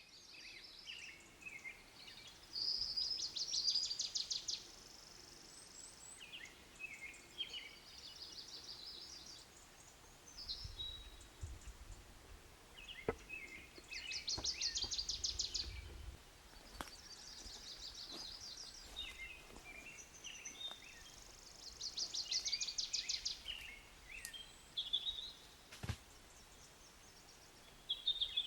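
Songbirds singing: short high phrases, several ending in a rapid buzzy trill, repeating every few seconds. A few sharp clicks and a low rumble about halfway through.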